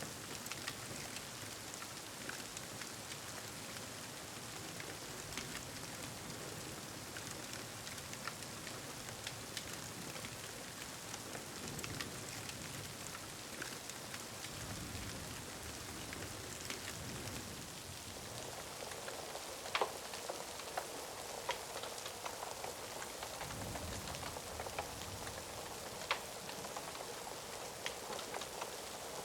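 Steady, heavy rain ambience with low rumbles of distant thunder swelling twice, and a few sharp pops from a crackling fire.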